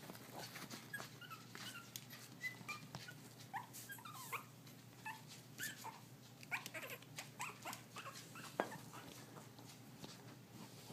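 Young puppies squealing and yipping in many short, high-pitched calls as they romp and wrestle together.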